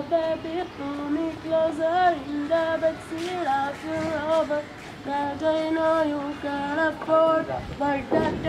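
A boy singing a slow melody unaccompanied in a high, young voice, holding each note briefly and bending between them.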